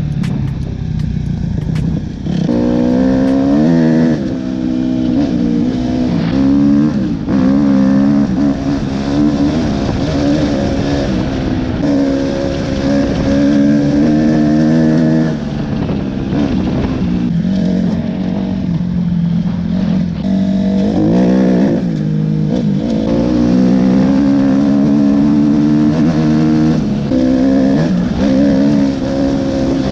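Suzuki RM-Z four-stroke motocross bike engine revving hard as it is ridden, its pitch rising and dropping back again and again.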